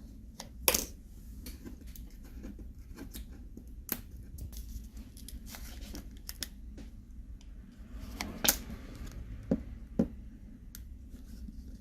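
Glued back plate of a Samsung Galaxy A70 being worked loose by hand: quiet crackling as the adhesive gives, with scattered small clicks and snaps.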